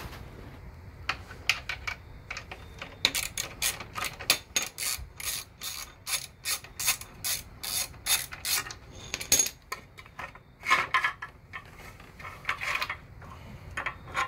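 Hand socket ratchet on an extension clicking steadily, about three clicks a second, as a bolt on a motorcycle's battery box is loosened. Two louder clattering handling sounds come later on.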